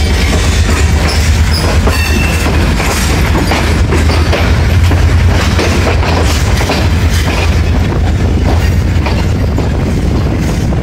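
Passenger train running over the tracks, heard from inside a coach: a steady low rumble of the wheels with clicking as they cross rail joints and points, and a faint brief wheel squeal about two seconds in.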